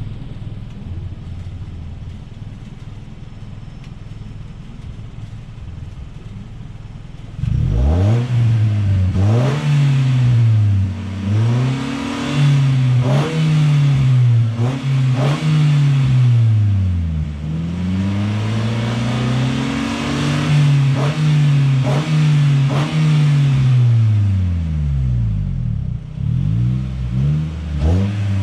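Nissan NV350 Caravan's 2.0-litre QR20DE four-cylinder petrol engine, breathing through a Fujitsubo Authorize R aftermarket muffler and a GruppeM Power Cleaner open intake filter, idling with a steady low hum. About seven seconds in it is revved hard, and the exhaust note climbs and falls back several times in a row.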